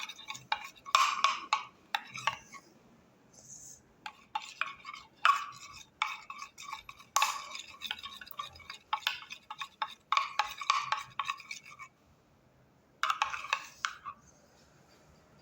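A utensil stirring and scraping glue slime mix in a container, in repeated bouts of a second or two with short pauses, stopping about fourteen seconds in.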